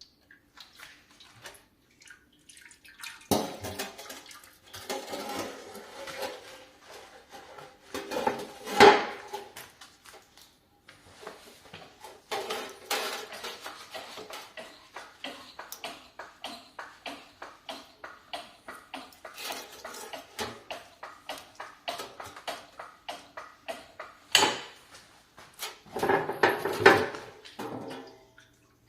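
Metal tools and parts clinking and clattering during work on the car, with a long run of quick, fairly even clicks in the middle and several louder knocks.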